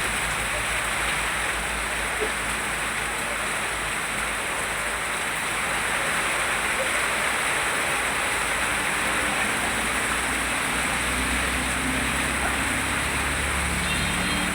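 Steady rain falling, an even hiss throughout. A low rumble joins about ten seconds in.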